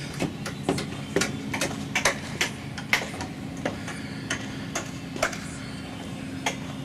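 Irregular sharp knocks of framing work on a house under construction, about two a second at uneven spacing, over a steady low hum.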